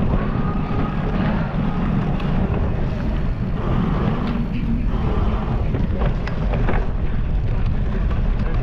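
Wind rushing over an action camera's microphone on a cyclocross bike at riding speed, a steady loud rumble, with scattered rattles and knocks from the bike over rough ground, mostly in the second half.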